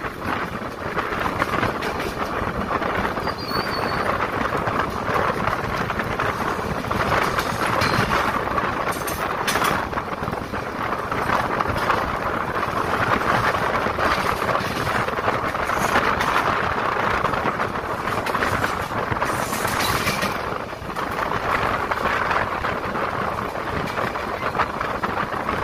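Indian Railways express train running at speed, heard from an open coach doorway: a steady rolling noise of wheels on the rails mixed with rushing air, with a few brief louder rushes.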